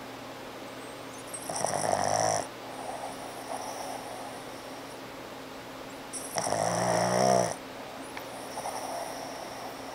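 Boston terrier snoring in its sleep: two loud, buzzing snores about five seconds apart, each lasting about a second, with quieter breaths between. Snoring like this comes from the breed's short, squishy face.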